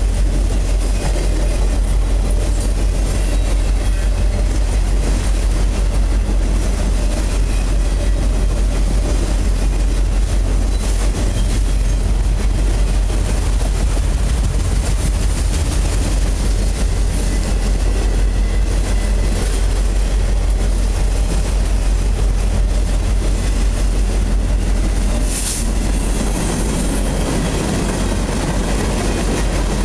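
Freight cars of a Union Pacific mixed freight train rolling steadily past close by, their wheels running on the rails. The noise changes briefly about 25 seconds in, as a different kind of car goes by.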